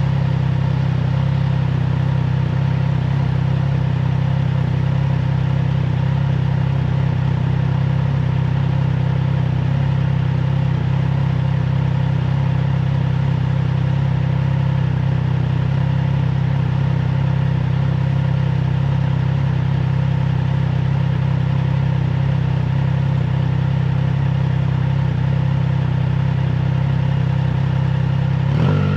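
Triumph Trident 660 inline-three engine through a FireTong aftermarket exhaust, running at a steady, unchanging engine speed as the motorcycle cruises, with wind noise on the microphone. A brief break in the note near the end.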